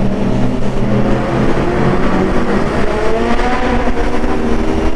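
Yamaha R25 parallel-twin motorcycle engine running under way, with wind rushing over the microphone. The revs dip slightly and then climb again about three seconds in.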